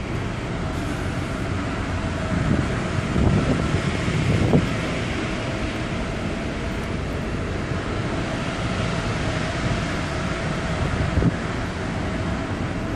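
Wind buffeting the microphone on a cruise ship's open deck, gusting strongest about three to four and a half seconds in, over a steady hum of the ship's machinery with a faint steady tone.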